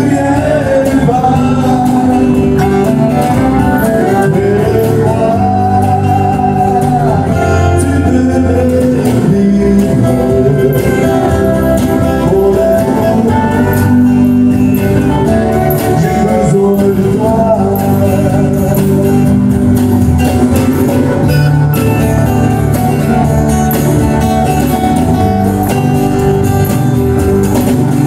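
Live country song: a man singing into a microphone over strummed acoustic guitar, with a backing band and drums.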